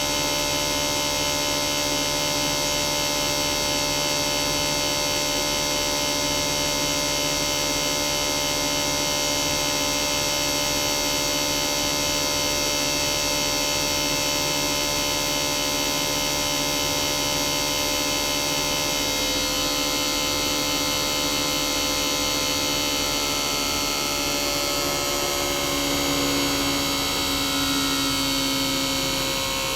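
Toshiba DA91A1F-42F twin rotary inverter compressor running with a steady electric hum and whine made of many tones at once. Toward the end several of the tones start to drift and slide in pitch as the inverter changes the compressor's speed.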